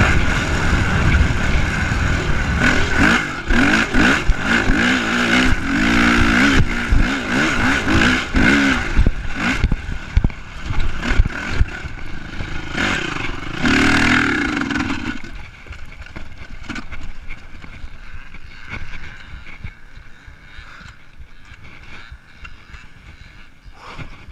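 Honda CRF450 dirt bike's four-stroke single-cylinder engine revving up and down while riding through sand, with the chassis and suspension clattering over bumps. About fifteen seconds in the engine sound falls away, leaving much quieter rattles and knocks.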